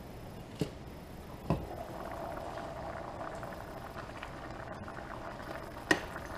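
Creamy pasta sauce bubbling at a hard boil in a stainless steel skillet, the bubbling louder once the glass lid is lifted off, which gives two sharp knocks in the first second and a half. Another single knock comes near the end as the spatula stirs.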